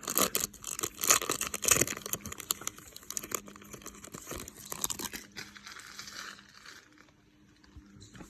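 Crinkling and tearing of a Topps Chrome trading-card pack wrapper being torn open. It is busiest in the first two seconds and fades out after about five seconds.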